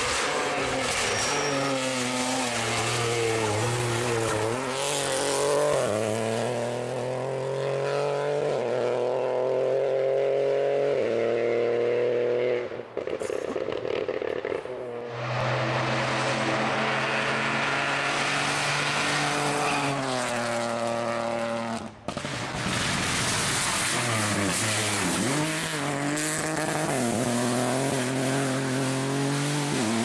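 Peugeot 208 Rally4 rally car's turbocharged three-cylinder engine pulling hard, its pitch climbing and dropping back in steps as it shifts through the gears, over several passes cut together.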